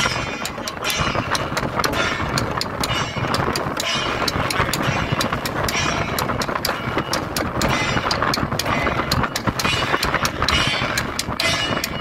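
Temple procession percussion: drums and cymbals struck in a fast, steady rhythm, with heavy wind buffeting the microphone.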